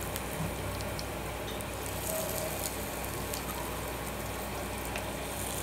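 Batter-coated leaf vadis shallow-frying in oil in a pan: a steady, gentle sizzle with a few faint pops.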